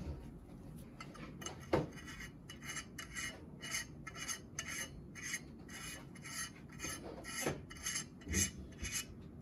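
Regular rasping rubs, about two strokes a second, with a few light knocks, as a gloved hand works a filter into a slot of a QHY CFW3L filter wheel.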